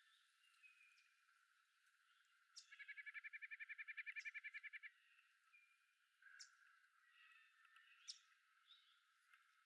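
Faint forest birdsong: scattered short chirps and thin high calls from several birds, with one rapid, even trill of about ten notes a second, lasting about two seconds, a few seconds in.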